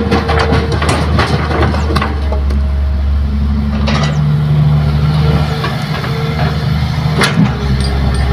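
Hydraulic excavator's diesel engine running steadily under load as its bucket drops soil and rocks into a dump truck's bed, with a dense clatter of impacts over the first two seconds. The engine keeps running as the boom swings away, with a couple of single knocks later on.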